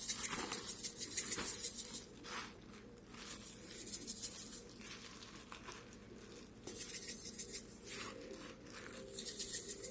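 Dried rosemary being shaken out of a spice jar, a quick run of rattling taps for about two seconds that stops, then scattered light clicks, and another run of taps near the end. Light crinkling from handling the plastic oven bag.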